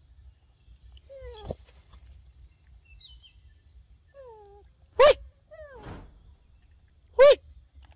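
Animal calls: several short calls that fall in pitch, then two loud, short yelping calls about two seconds apart, over a steady high whine.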